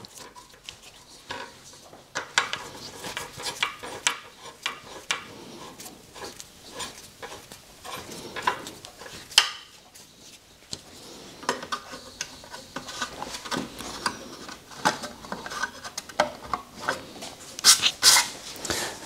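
Hand tools and small metal parts clinking and clattering in irregular sharp clicks and taps, with a cluster of louder clicks near the end.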